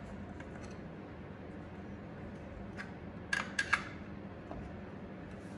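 A few light metallic clicks and clinks of hand tools against engine parts, the loudest three close together a little past the middle, over a steady low hum.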